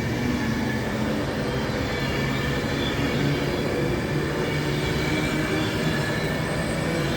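Class 390 Pendolino electric train moving along the platform, a steady rumble and hum with some high squeal from the wheels.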